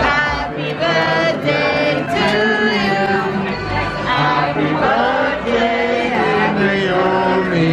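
Several voices singing together, with music.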